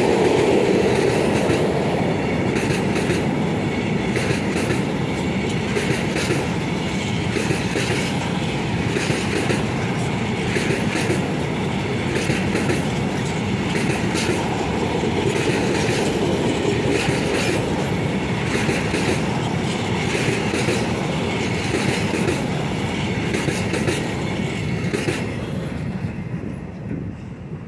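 Freight wagons rolling past on the rails: a steady rumble with repeated clickety-clack of wheels over rail joints. The sound fades away near the end as the last wagon passes.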